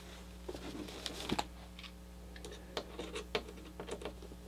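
Scattered small metallic clicks and ticks from a screwdriver turning the mounting screws of a motherboard MOSFET waterblock, over a steady low electrical hum.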